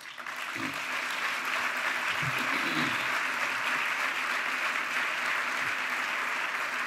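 A large seated audience applauding steadily in a sustained round of clapping, which swells up right after the end of a speech line.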